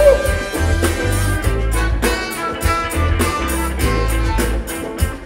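Live soul-funk band playing, with a heavy pulsing bass line, regular drum-kit hits and guitar.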